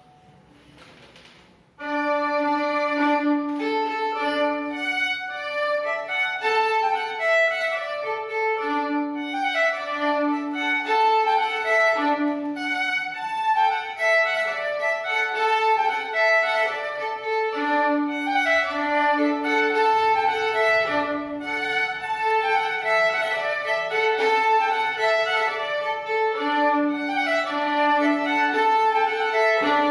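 Solo violin playing an Occitan corrente dance tune, its melody running over long held low notes. The playing starts about two seconds in.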